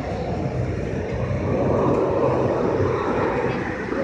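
Paratransit bus engine idling with a steady low hum, while road traffic passing swells louder from about a second and a half in.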